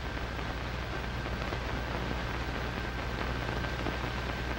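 Hiss and crackle of an old film soundtrack, with a steady low hum and a faint steady high whine underneath; no distinct event stands out.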